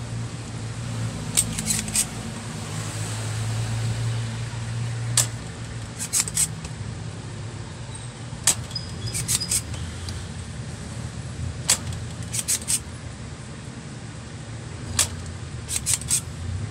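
Spring-loaded desoldering pump clicking as it is cocked and fired to suck solder off the filter capacitor leads: sharp clicks, a single one and then a quick group of three, over and over, over a steady low hum.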